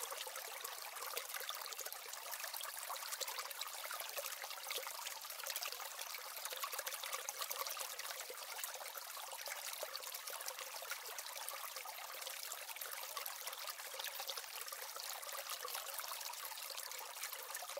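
Steady trickle of running water, thin and crackly with no low end, unchanging throughout.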